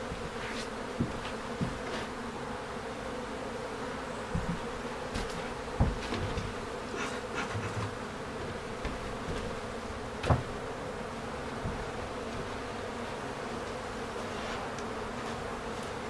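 Honeybee colony humming steadily in an opened hive. A few short knocks and clicks come from the hive covers and smoker being handled, the loudest about ten seconds in.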